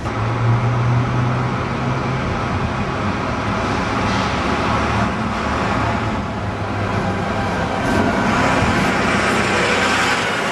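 Single-deck diesel bus approaching and driving past close by, its engine running with a steady low hum. The noise swells as it passes, near the end.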